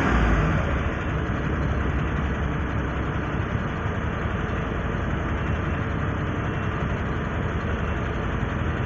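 UD Quester truck's diesel engine idling steadily, heard from the cab, a little louder for the first second, while the air system builds pressure toward its 8 bar maximum.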